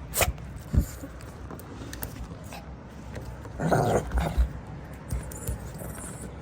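Shih Tzu dog making short noisy sounds, loudest in a burst about halfway through, with a sharp click and a knock in the first second.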